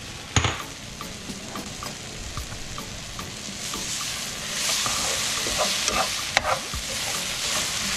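Meat and chopped vegetables sizzling in a skillet while a metal spoon stirs and scrapes through them, the sizzle growing louder about halfway through. There is a heavy clunk about half a second in and a sharp knock of metal a little after six seconds.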